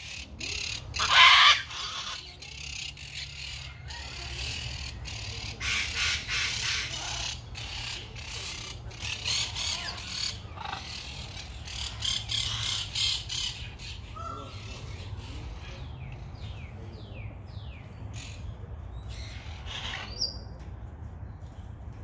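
Macaws squawking: harsh, raspy screeches repeated every few seconds, the loudest about a second in.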